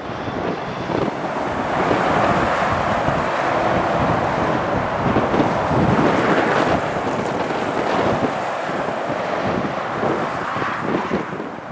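Motorway traffic passing: the tyre and engine noise of lorries and cars rises and falls as each goes by, loudest about six seconds in, with wind buffeting the microphone throughout.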